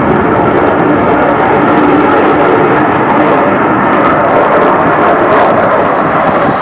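Airplane flying over, its engine noise loud and steady throughout.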